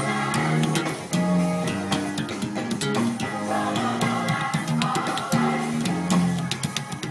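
Four-string bass guitar playing a moving gospel bass line, one low note after another, over backing music with drums.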